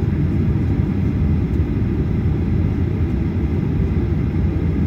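Boeing 737-800 cabin noise as the jet rolls along the runway: a steady low rumble of engines and wheels heard from inside the cabin.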